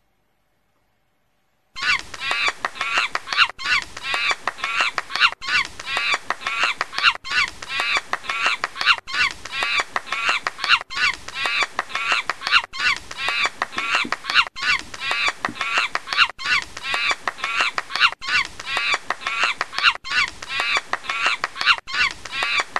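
A short recording of rapid, repeated animal calls looped over and over: the same stretch of just under two seconds repeats, with a brief cut between repeats. It starts abruptly about two seconds in and is loud.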